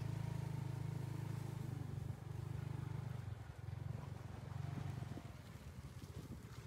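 An engine running steadily with a low, even drone, fading away about halfway through.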